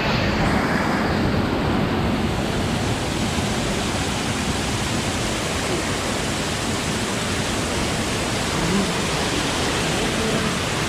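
Rushing water of a waterfall: a steady, dense, unbroken noise of falling water.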